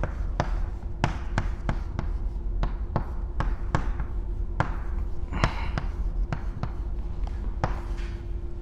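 Chalk writing on a blackboard: irregular sharp taps and short scratches as formula strokes are drawn, about two a second, over a faint steady hum.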